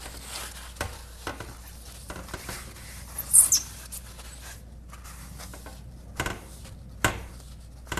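Dry paper towel wiping soot off fireplace glass: scattered rubbing strokes, with one short high squeak a little over three seconds in.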